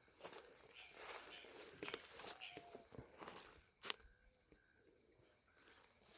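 A steady, fast-pulsing insect trill, like a cricket, with faint rustling and a few light clicks of movement about one to four seconds in.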